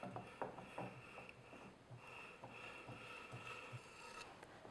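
Faint soft scraping with light scattered ticks, as a metal spatula smooths a chocolate ganache crumb coat over a layer cake.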